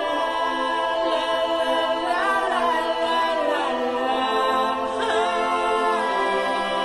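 Background vocal music: several voices singing long held notes a cappella, with a few gliding pitch changes.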